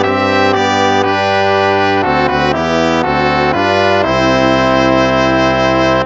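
Instrumental hymn music in a brass sound, slow sustained chords that change every half second or so, with one long held chord over the last two seconds that breaks off at the very end.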